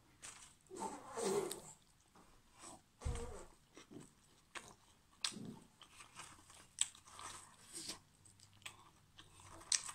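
A person biting into and chewing a piece of kebab wrapped in flatbread close to the microphone, with irregular small mouth clicks and smacks and a soft low bump about three seconds in.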